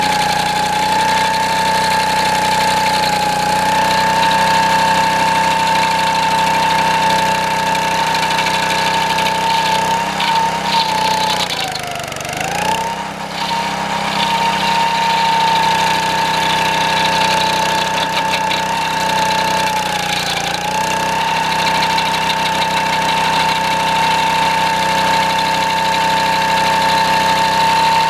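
Homemade stump grinder's 6.5 hp Honda single-cylinder engine running at high, steady speed. Its pitch sags twice: deeply at about twelve seconds in, slightly at about twenty seconds in, then recovers each time. This is the engine bogging under load as the 20-inch toothed cutting wheel bites into the green pine stump.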